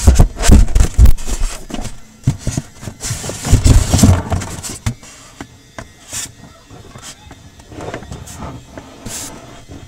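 Handling noise on the camera's microphone: loud irregular bumps and rubbing, heaviest in the first half, then fainter clicks and rustles.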